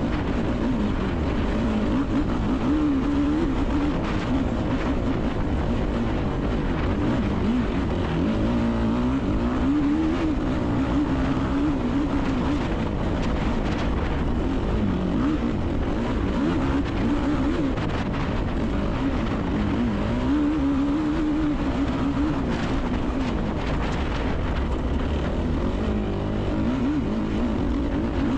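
Yamaha YFZ450R race quad's single-cylinder four-stroke engine under hard throttle on a dirt trail, heard from on board. Its pitch rises and falls over and over as the rider gets on and off the throttle and shifts.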